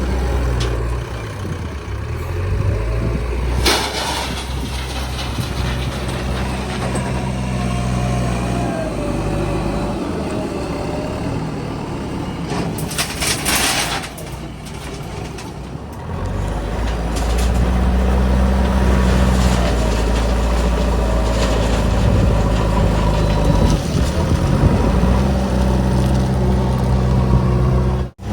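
Heavy diesel engines of backhoe loaders and trucks running, growing louder as they are worked harder from about seventeen seconds in. There is a sharp clank about four seconds in and a short burst of air hiss about thirteen seconds in.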